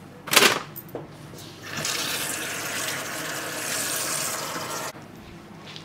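A short, sharp clatter, then water pouring into a container for about three seconds before stopping abruptly.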